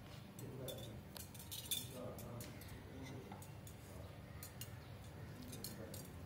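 Faint, scattered light clicks and clinks while hands press and shape mashed potato around a boiled egg piece over a ceramic plate, over a low steady background hum.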